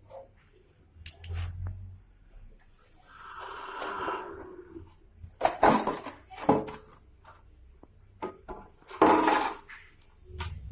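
Spanner and metal parts clinking and clanking as a motorcycle chain cover is unbolted and taken off: a few sharp knocks, with a scraping rustle about three seconds in.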